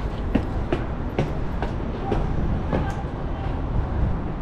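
Footsteps climbing a flight of stairs, about two steps a second, over a steady low rumble.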